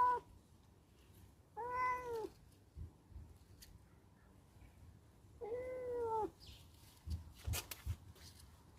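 Domestic cat meowing: two drawn-out meows a few seconds apart, each rising then falling in pitch, followed by a few short clicks near the end.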